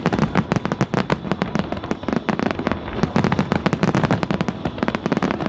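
An aerial fireworks display going off in rapid succession: a dense stream of sharp cracks, many a second, over a low booming of the bursts.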